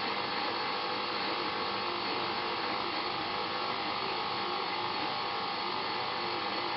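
KitchenAid tilt-head stand mixer's motor running steadily at low speed, a continuous even hum, its dough hook turning flour as water is added to make pizza dough.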